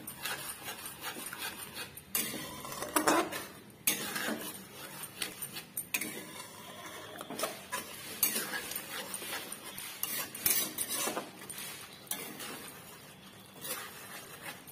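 Metal spatula scraping and knocking against a metal kadai in irregular strokes as a thick, wet masala paste is stirred.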